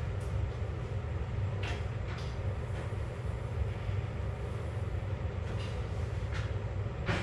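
A steady low hum, with a few faint light clicks and taps over it.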